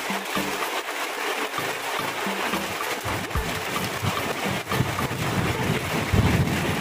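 Rain falling steadily, an even hiss with drops splattering throughout; a low rumble builds about six seconds in.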